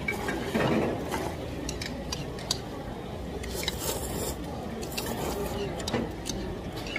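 Knife-cut noodles (kalguksu) being slurped, with metal chopsticks and spoons clicking against ceramic bowls several times, over the chatter of a busy market eatery.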